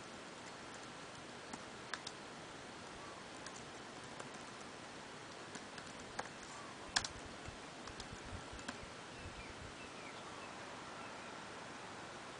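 Typing on a MacBook Pro laptop keyboard: scattered, irregular key clicks, the loudest about seven seconds in, over a faint steady hiss.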